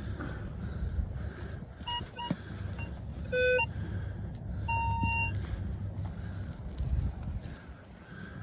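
Minelab Vanquish metal detector beeping over a buried target: a few short beeps, a louder, lower-pitched tone, then a longer, higher tone about five seconds in.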